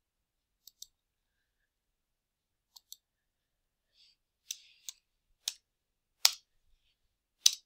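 Computer mouse clicks: two quiet double clicks early, then a handful of louder single clicks spaced about a second apart in the second half.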